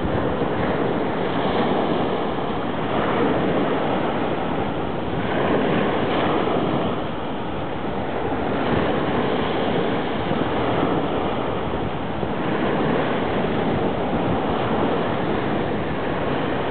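Steady rushing of wind and waves at the sea, swelling and easing a little every few seconds, with wind on the microphone.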